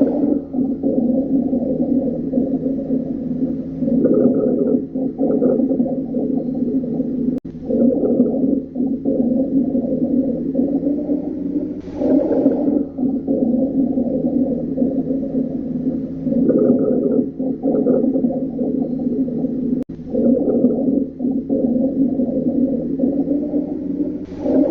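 Rhonchi heard on chest auscultation: low-pitched, continuous rattling, snoring-like breath sounds that swell with each breath, roughly every four seconds. They are the sign of mucus or secretions in the larger airways, typical of bronchitis, pneumonia or COPD.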